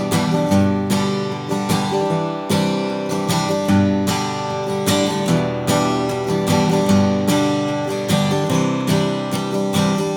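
Taylor PS14ce steel-string acoustic guitar being played: a steady run of strummed and picked chords, each attack ringing on into the next.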